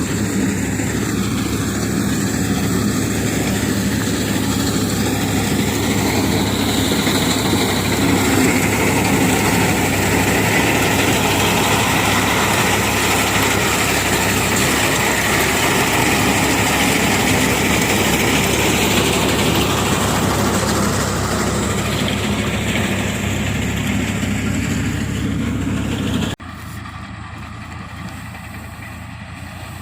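Engine of a wheat-harvesting machine running steadily. About three-quarters of the way through it cuts abruptly to a quieter, steady engine hum.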